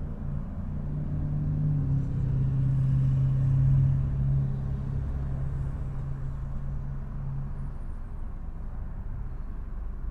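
A car engine running with a low rumble. Its hum grows louder to a peak about four seconds in, then eases off and fades out near the end.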